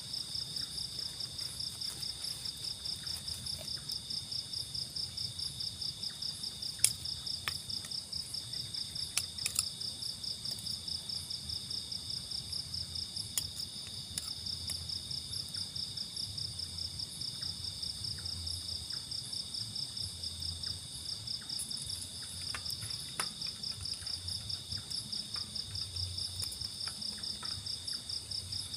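Insects, crickets or cicadas, chirping in a steady, fast, evenly pulsed high chorus. A few sharp clicks or pops break in, the loudest about seven seconds in.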